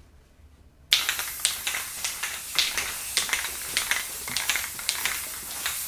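Aerosol spray paint can spraying with a loud hiss that starts abruptly about a second in, with many brief sharper spurts on top of it.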